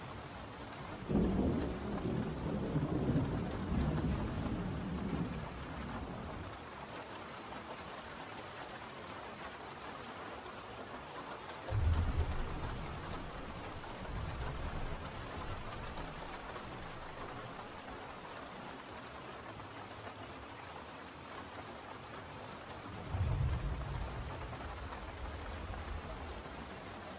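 Steady rain hiss with thunder rumbling three times, each rumble starting suddenly and dying away over a few seconds; the first is the longest.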